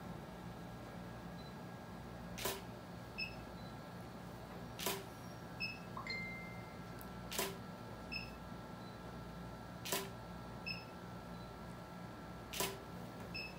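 Camera shutter firing five times, one shot about every two and a half seconds. Each sharp click is followed by a fainter second sound a moment later.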